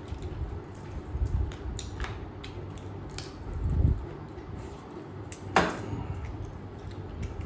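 Eating sounds: chewing and mouth noises, with light clicks of cutlery or dishes and one sharper click about five and a half seconds in.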